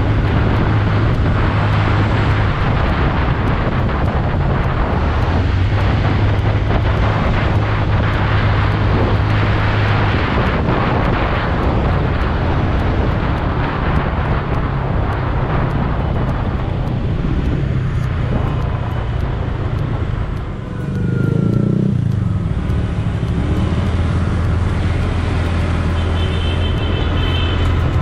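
Yamaha Mio Sporty scooter's single-cylinder engine running steadily under way, with a constant low drone mixed with wind and road noise. The level dips briefly about twenty seconds in, then the engine picks up again.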